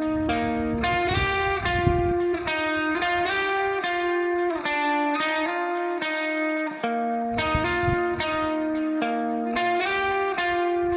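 Background music: a guitar picking notes at a steady, even pace.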